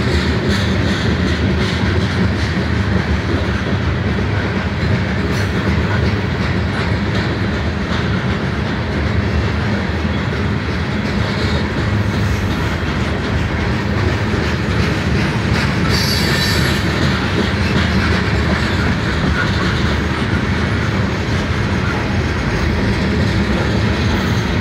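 Covered grain hopper cars of a long freight train rolling past: a steady noise of steel wheels on the rails, with a brief high-pitched squeal about sixteen seconds in.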